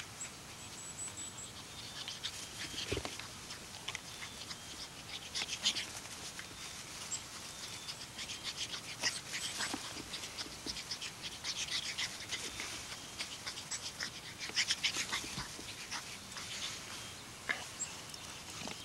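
A pug puppy playing in long grass: short rustling crackles from the grass throughout, along with the puppy's own dog noises, and a few faint bird chirps near the start.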